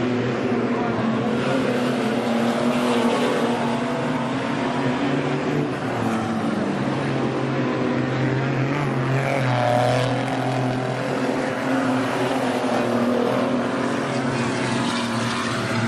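Engines of several stock cars running at once as they circle the track, their overlapping notes rising and falling as the cars pass.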